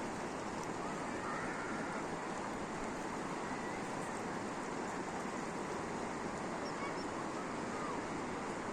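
Steady rushing of the Chitral River's fast water, an even hiss with no breaks, with a few faint short high chirps over it.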